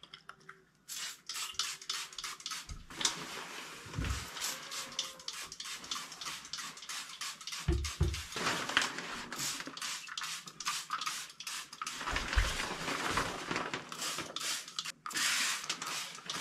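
Hand trigger spray bottle squirting cleaner onto a bathtub in many quick, hissing squirts, one after another, with a few dull knocks in between.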